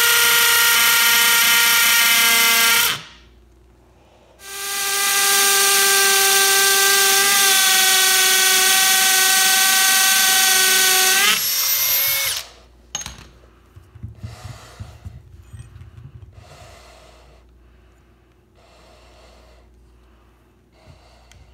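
Cordless drill with a masonry bit boring into a bowling ball: two long runs at a steady high whine, the second ending with a rising pitch about twelve seconds in. After that, a faint, slow rhythmic scraping, about once a second, as a lag screw eye is turned by hand into the drilled hole.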